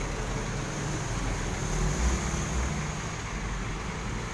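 Engine of a flatbed car carrier tow truck running steadily, with a slight swell about two seconds in.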